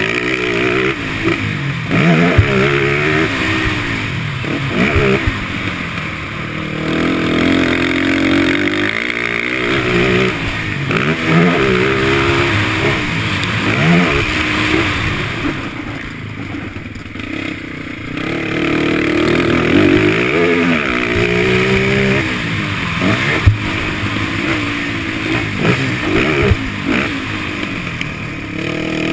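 Sport quad (ATV) engine heard from onboard, revving hard and easing off over and over as it runs around a dirt track, its pitch rising and falling with each acceleration and shift. A few sharp knocks cut through, about two seconds in, halfway through and near the end.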